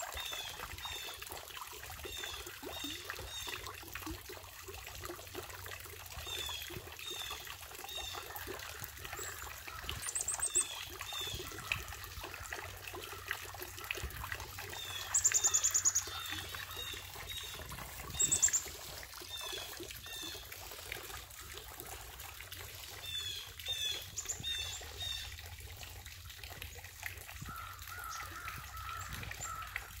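Garden fountains trickling under songbirds calling: many short repeated chirps, with three louder, high-pitched calls through the middle. A steady note comes in near the end.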